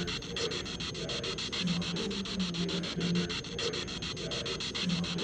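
Amplified camera-mic recording played back as a claimed Class A EVP of a voice saying "he's here": dense scratchy crackle of about ten ticks a second, with short low hum-like tones that come back about every three seconds.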